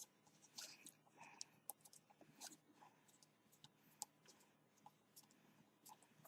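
Near silence with faint, irregular small clicks and taps from hands working on a smartphone's parts.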